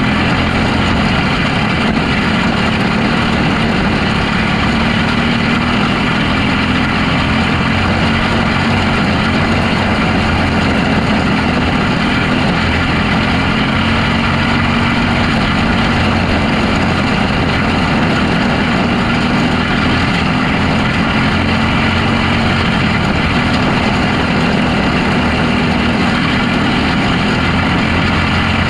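Onboard sound of a Restricted Box Stock winged micro sprint car: its engine running steadily at a nearly constant pitch, with rushing wind and track noise over the car.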